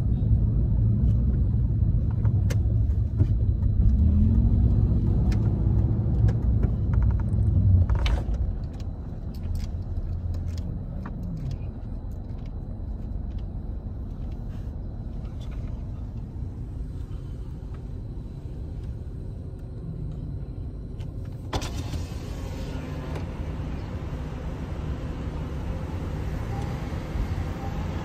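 Car cabin noise while driving: a heavy low road rumble that drops to a quieter steady hum about eight seconds in. A brighter hiss of traffic noise joins about twenty seconds later.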